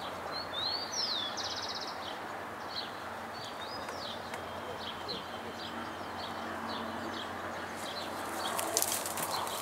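Small birds calling in open countryside: a few rising and falling whistles and a short buzzy trill early on, then scattered short chirps over a steady outdoor hiss. Near the end, crackling and scuffing noises come in and grow louder.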